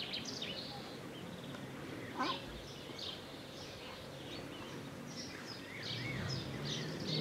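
Small birds chirping, with high short calls, quick trills and a few gliding notes scattered through, over a low steady hum that grows louder near the end.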